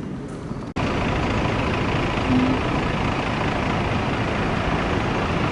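Steady road traffic noise, a loud even rush that starts abruptly just under a second in and stops suddenly near the end.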